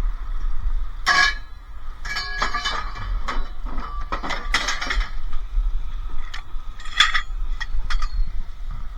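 Scrap metal being handled and loaded: a series of metal clanks and clinks with short ringing, in clusters about a second in, through the middle, and again near the end.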